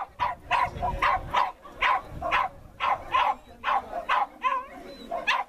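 A dog barking over and over in a quick, steady run, about two or three barks a second, with a short pause near the end.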